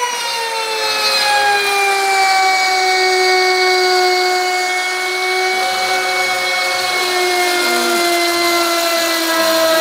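Wood router mounted on a CNC machine, running and routing a groove into a wooden board: a steady high whine that slowly drops in pitch.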